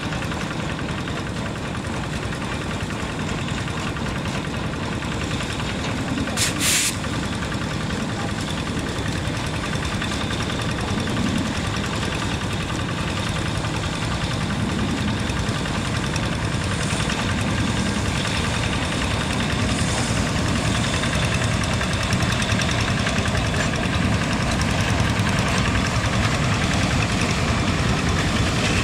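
Diesel locomotive engine running steadily under light load as it hauls a train of old freight wagons at walking pace, with a brief sharp noise about six seconds in. The sound grows a little louder near the end as the locomotive draws closer.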